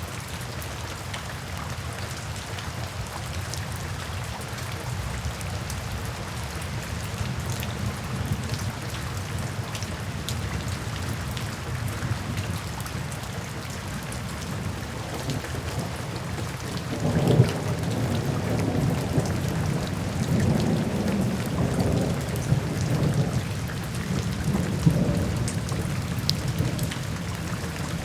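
Steady rain falling, with a crack of thunder a little past halfway that rolls on as a low rumble, swelling and fading, to the end.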